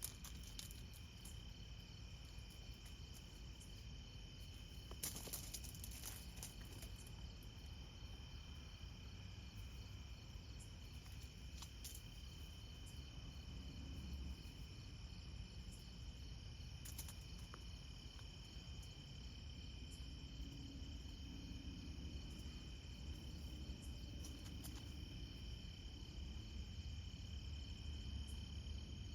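Night insects, crickets, chirping steadily in a continuous high chorus over a low background rumble, with a few brief clicks around five seconds in.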